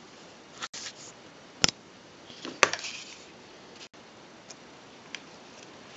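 Handling noise: a few sharp clicks and light knocks, the loudest two about a second apart, over a steady low hiss.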